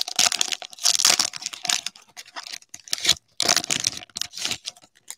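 Plastic wrapper of an NBA Hoops trading card pack being torn open and crinkled, in several short bursts of tearing and rustling with brief pauses between them.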